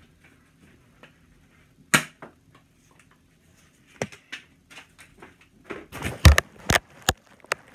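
A few sharp clicks and knocks: one about two seconds in, then a quick cluster near the end, the loudest just past six seconds.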